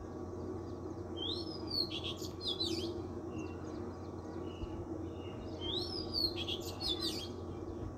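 A songbird singing two similar short phrases of quick rising and falling chirps, about four seconds apart, over a steady low hum.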